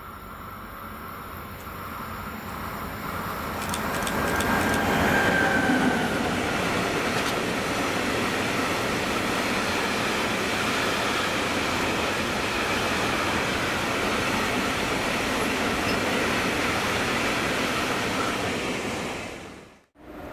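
A train approaching and passing close by: the rolling noise builds over about five seconds, holds loud and steady, then cuts off abruptly near the end.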